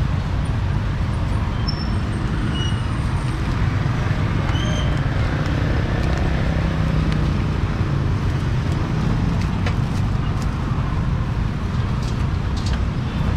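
Steady street traffic noise: a continuous low rumble of passing road vehicles, with a few faint short high chirps in the first five seconds.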